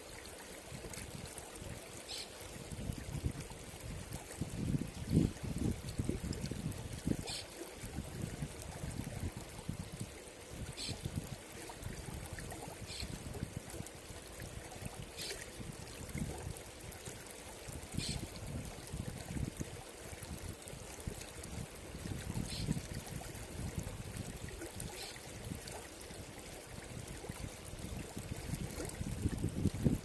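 Shallow rocky river running over and around boulders: an uneven low rush of water, with a short high tick every two to three seconds.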